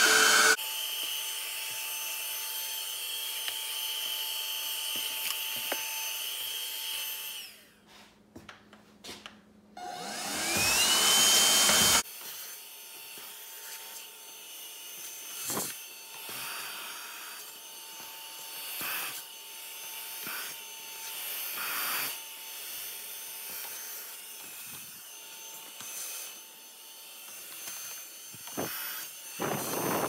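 Rechargeable handheld vacuum running, its motor whine rising as it spins up again about ten seconds in, after a brief cut to near silence. Later it runs fainter and steady, with occasional short knocks.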